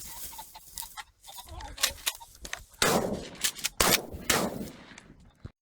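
Three shotgun shots within about a second and a half, each sharp crack trailing off in an echo, after a couple of seconds of faint clicks and taps.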